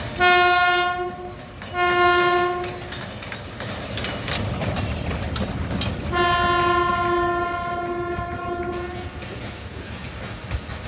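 PHA-20 series diesel locomotive's horn sounding three blasts: two short ones in quick succession, then a long one a few seconds later, over the low rumble of the passing train.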